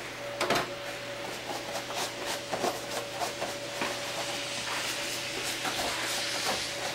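Irregular crunching and rubbing noises over a faint steady hum.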